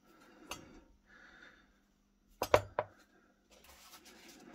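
Handling noise from a small antique percussion pocket pistol: a light metallic click about half a second in, then a quick cluster of three sharp metallic clicks and knocks about two and a half seconds in, with soft rubbing between and near the end.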